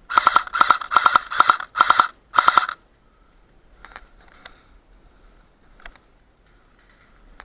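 Airsoft rifle firing six short bursts of rapid shots in quick succession, each a fast rattle of clicks. A few faint clicks follow.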